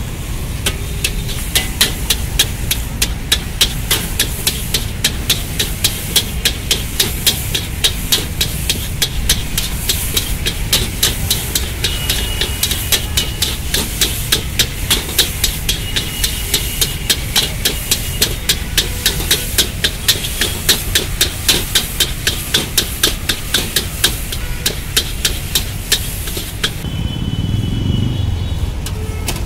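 Metal ladle clanging and scraping against an iron wok while stir-frying noodles, a quick steady rhythm of about three strikes a second over the steady rush of the gas burner underneath. Near the end the clanging stops and only the burner is heard.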